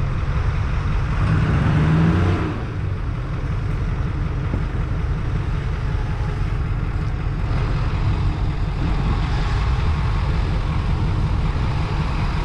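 Ford F-450 pickup's engine running as the truck crawls along a trail, revving up briefly about two seconds in, then settling back to a steady low drone.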